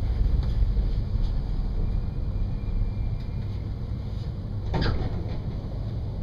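Low, steady rumble of a regional diesel train moving slowly into a station. A faint thin squeal comes in the middle, and a short sharp noise sounds about five seconds in.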